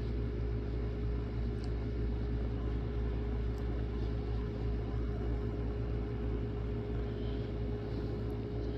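Steady low background hum and rumble with one constant mid-pitched tone running through it, unchanging, like a motor or appliance running.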